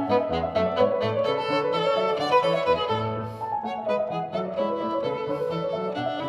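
Background music: an upbeat instrumental tune led by a violin, with lower notes moving underneath.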